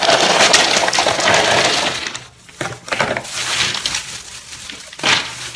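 Ice cubes clattering and tumbling into a plastic bag, a dense rattle for about two seconds, then shorter rattles and a sharp clack near the end.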